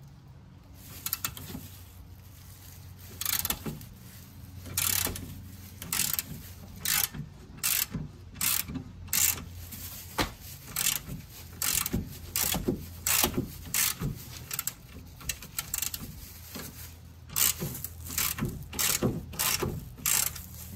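Ratchet wrench clicking in many repeated back-and-forth strokes, uneven in pace, as a 14 mm suspension bolt is loosened. A low steady hum runs underneath.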